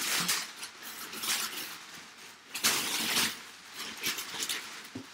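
Crumpled brown kraft packing paper rustling and crinkling as hands pull it out of a cardboard box, in several uneven bursts, the loudest about two and a half seconds in.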